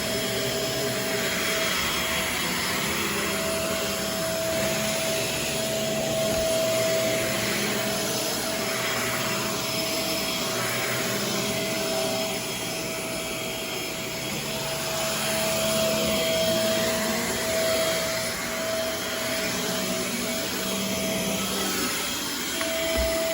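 Shark Navigator Swivel upright vacuum cleaner running steadily: a constant motor whine over the rush of air, the rushing swelling and easing slightly as the vacuum is worked across the floor.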